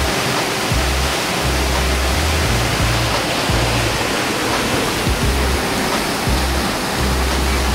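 Waterfall close by: a steady, loud rush of falling water, with a music track's bass line stepping underneath.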